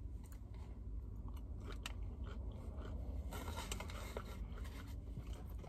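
A person quietly biting and chewing crispy fried hash browns, with faint crunching and small crackles, after reaching into a paper bag.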